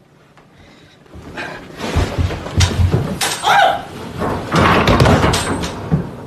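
A comforter-wrapped bundle tumbling down a flight of stairs: a quick run of heavy thumps and bangs starting about two seconds in, with the densest run near the end.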